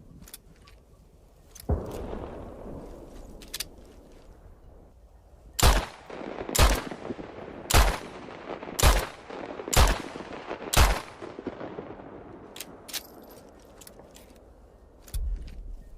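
Spanish Ona revolver firing six shots about a second apart, each followed by a short echo, after one softer bang a couple of seconds in. A few faint clicks come before and after the shots.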